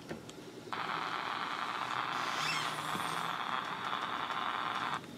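Static hiss from a Grundig E Traveller VII pocket radio's small speaker, tuned to shortwave between stations. It comes on suddenly about a second in, holds steady and cuts off abruptly near the end, as the radio's muting does while it scans the band.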